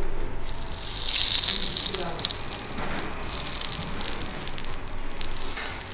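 Hot melted butter sizzling as it is poured from a small pan onto İskender kebab meat and tomato sauce, a loud hiss strongest about a second in that then eases off.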